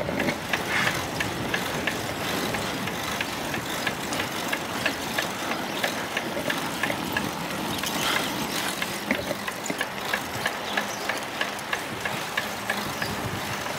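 Bicycle riding sounds picked up by a phone carried on the bike: steady wind and road noise with a regular run of light ticks, about two or three a second.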